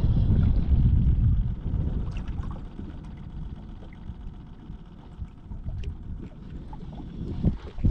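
Wind buffeting the microphone in gusts, strongest in the first second or so and picking up again near the end, with water lapping against the boat's hull.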